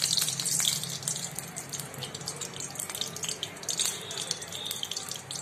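Freshly poured cooking oil sizzling and crackling in a hot kadhai. A dense hiss with fine spitting ticks, loudest at the start and easing off as the oil settles.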